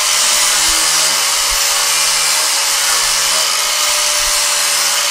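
Angle grinder with a flap disc grinding down a fresh weld on a steel chrome bumper, the motor running at a steady whine under load.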